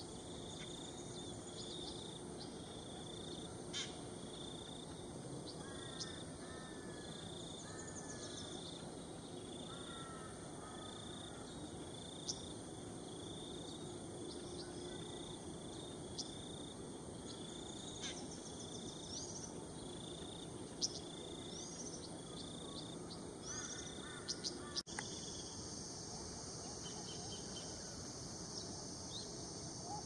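Wetland ambience: a steady high insect drone, with a short bird note repeated steadily a bit more than once a second and a few quick runs of bird notes falling in pitch. Near the end the insect sound shifts higher and grows louder.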